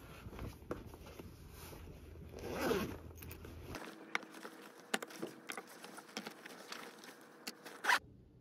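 Zipper on a fabric crossbody bag being pulled open, then rummaging in the bag with light clicks and knocks of items, the loudest just before the end.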